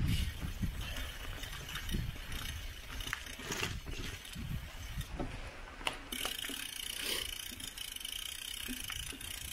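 Mountain bike being ridden over a path: its parts rattle and click unevenly over a steady low rumble.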